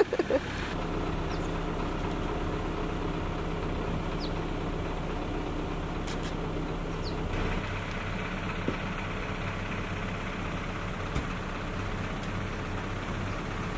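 An engine idling steadily, its note shifting slightly about seven seconds in, with a few faint, short high chirps over it.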